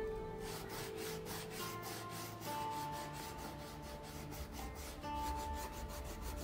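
Rapid back-and-forth scrubbing strokes on the leather sole of an old brown REGAL dress shoe, repeating a few times a second, with soft background music.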